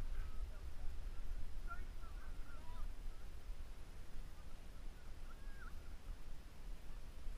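Wind buffeting the microphone as a steady low rumble, with a few faint, short, high calls in the distance, about two seconds in and again past the middle.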